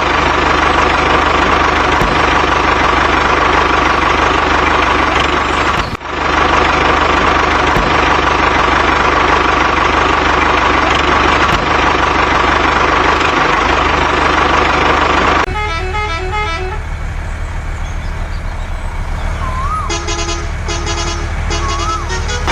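A truck engine running steadily, briefly cut off about six seconds in. About two-thirds of the way through it gives way to a series of short horn toots.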